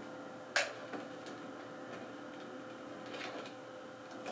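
Steady hum of a running Macintosh Quadra 700 with a constant tone, broken by one sharp click about half a second in and a few fainter ticks later.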